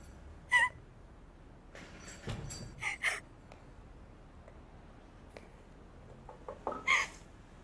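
A woman crying, with short catching sob-gasps about half a second in, a cluster around two to three seconds, and another near the end, between stretches of quiet.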